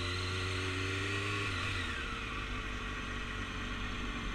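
600 cc motorcycle engine running at low speed, its note rising slightly, then falling away about a second and a half in as the throttle is rolled off.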